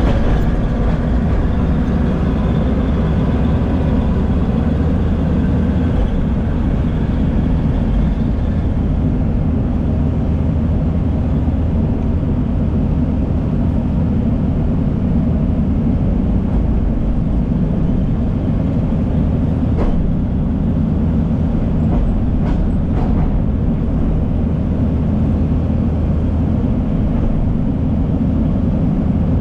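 Diesel engines of heavy earthmoving machinery running steadily with a low rumble. A higher pitched whine fades out several seconds in.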